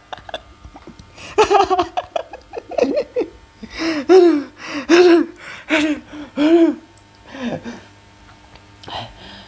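Uncontrolled laughter: a run of short, pitched whooping laughs about a second apart that rise and fall in pitch, fading out about seven seconds in.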